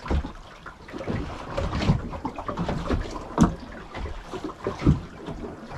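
Small waves slapping against the hull of a small boat drifting at sea, with wind on the microphone; the sharpest slaps come about every second and a half.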